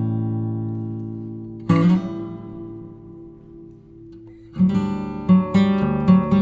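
Background music on acoustic guitar: a strummed chord rings out and fades, then a quicker run of strummed chords starts a little after halfway through.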